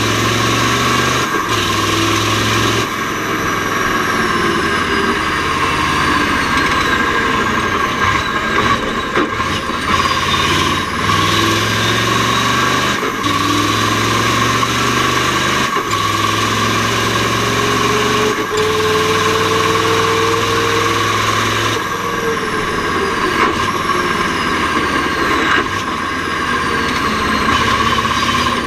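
Mack R-series truck's V8 diesel engine running under load, its note climbing and then dropping back as it is shifted through the Roadranger gearbox, with a brief break in the sound at each of about nine gear changes. A steady higher whine runs under the engine throughout.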